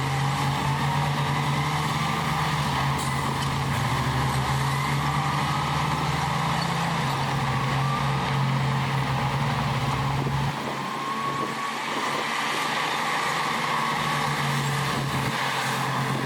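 Heavy diesel earthmoving machinery running, its engine drone shifting pitch a few times and easing off about ten seconds in before picking up again, with a faint wavering whine above it.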